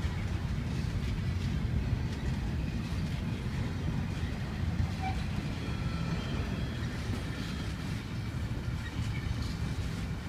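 Double-stack intermodal freight train's loaded well cars rolling past on steel rails, a steady low rumble of wheels on track with faint clicks and brief faint high-pitched tones above it.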